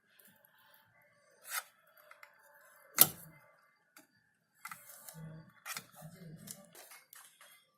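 Sharp handling clicks and knocks, the loudest about three seconds in, then a few seconds of light scattered clatter, as of small tools and parts being handled on a workbench.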